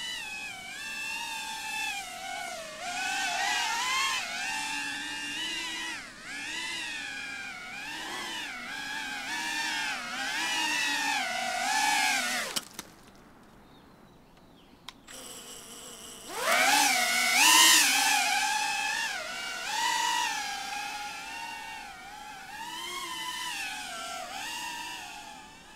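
GEPRC Cinelog35 FPV cinewhoop drone's motors and propellers whining, the pitch rising and falling with the throttle. About twelve and a half seconds in the whine glides sharply down and goes almost quiet for about three seconds, then climbs back up.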